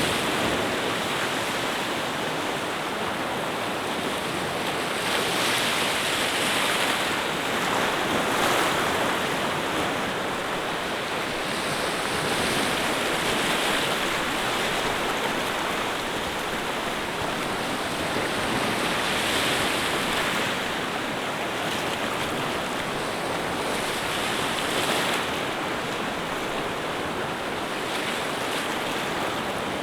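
Water rushing steadily, swelling and easing every few seconds.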